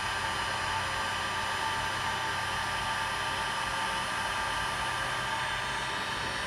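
Heat gun running steadily, a blowing rush with a steady motor whine, as it heats solder-seal heat-shrink wire connectors until they shrink and the solder wicks.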